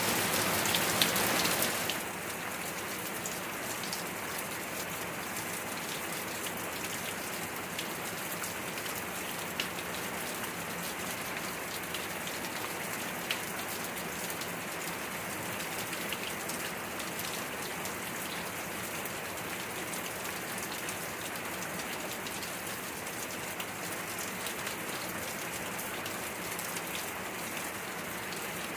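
Steady rain falling, a dense even hiss with many separate drops striking. It is louder for about the first two seconds, then settles to an unchanging level.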